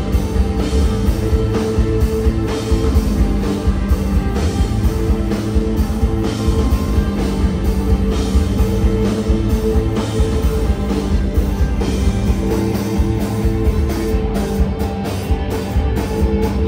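Live rock band playing an instrumental passage: several electric guitars hold sustained, layered notes over a driving drum kit, and the drumming gets busier near the end.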